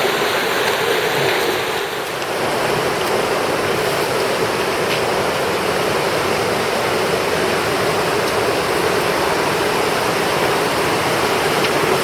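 Loud, steady rushing of fast river rapids, dipping slightly for a moment about two seconds in.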